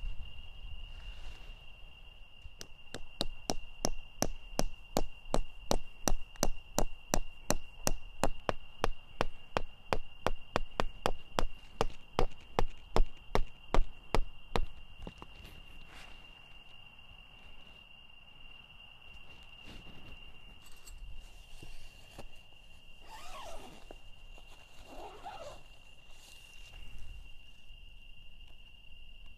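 A steady, high-pitched insect trill, typical of crickets at night, runs throughout. From about two seconds in until about fifteen seconds, a fast series of sharp knocks at about three a second stands out loudly over it, then stops.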